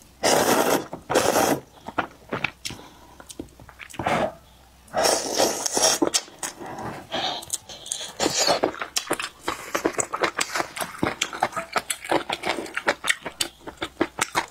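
Noodles being slurped from a bowl of beef noodle soup, a few long loud slurps in the first six seconds. After that comes rapid wet chewing of beef and noodles with quick lip smacks, close to a clip-on microphone.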